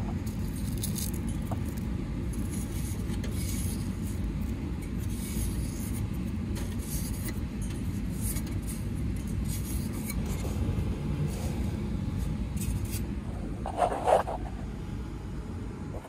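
Fingers scraping and brushing debris out of the metal housing of a gas furnace's draft inducer, as light scattered scrapes over a steady low rumble. Two short knocks come near the end.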